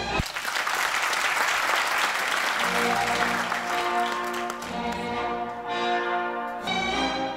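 Audience applause breaks out just as the music for the dance begins, strongest for the first couple of seconds and fading away while the orchestral music plays on.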